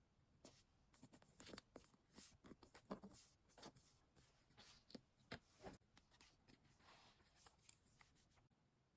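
Faint rustling, crinkling and light tapping of paper and stationery being handled on a diary page, in quick irregular bursts that stop shortly before the end.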